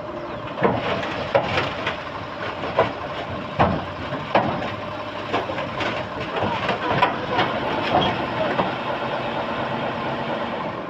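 Bulldozer running steadily, with irregular sharp metallic clanks and knocks every second or so.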